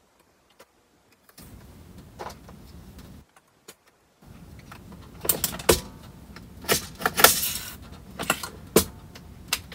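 A MEC 600 Jr. shotshell press being worked by hand while loading 12-gauge shells. After a near-silent start, sharp metallic clicks and clacks come from the handle and stations, with a short rattle just past the middle.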